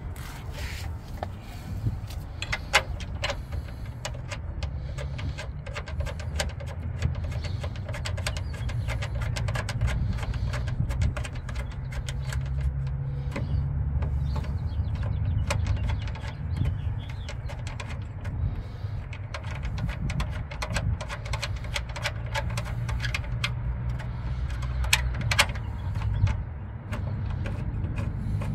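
Scattered metallic clicks and knocks of bolts and a steel running-board bracket being handled and fitted under a vehicle, over a steady low rumble.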